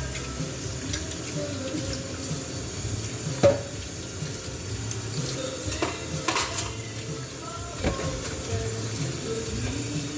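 Tap water running into a sink during dishwashing, with a few sharp clinks of dishes being handled, the loudest about three and a half seconds in. Music plays underneath.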